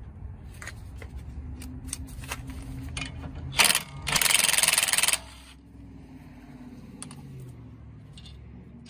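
Cordless impact wrench, a short blip and then about a second of hammering that stops abruptly, as it spins off the nut used to draw a new wheel stud into the hub. A few light clicks of handling tools and parts come before it.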